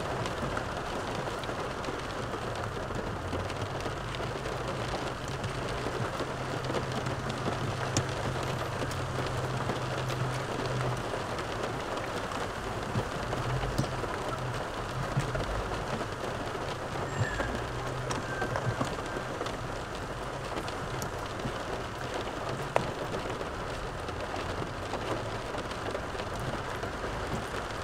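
Steady patter of rain on the roof of a parked car, heard from inside the cabin over a low steady hum. A few light clicks of a spoon against a plastic takeaway container come through now and then.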